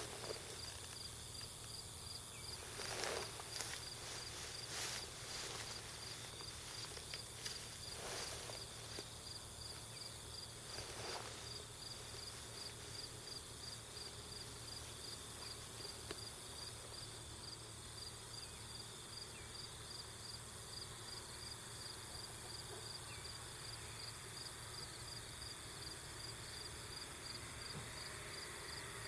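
Insects chirping in a steady, rapid high pulse, with a few faint soft knocks in the first dozen seconds.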